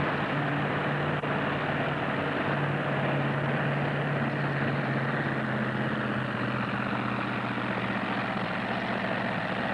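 Supercharged V8 engine of a mini modified pulling tractor idling steadily, an even low engine note that neither rises nor falls.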